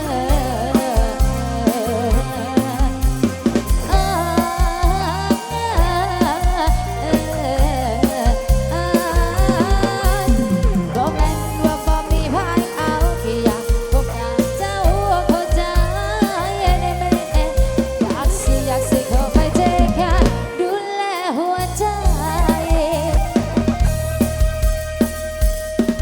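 Live band music over a rot hae sound-truck system: a melodic instrumental passage over a steady drum-kit beat and heavy bass. The drums and bass drop out for about a second some 20 seconds in, then come back.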